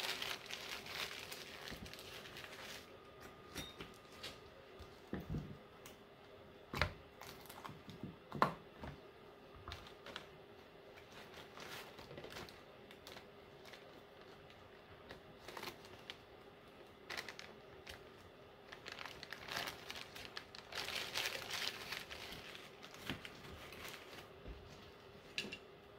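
Paper coffee filters crinkling and rustling on and off as gloved hands pull them apart and fold them, with a few sharp taps and clicks in between.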